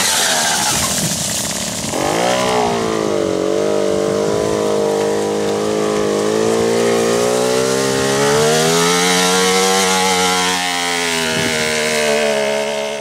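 Puch 50 cc two-stroke engine with a 15 mm Bing carburettor, powering a small quad driving through mud. Its note dips and recovers twice in the first couple of seconds, then climbs and holds at high revs.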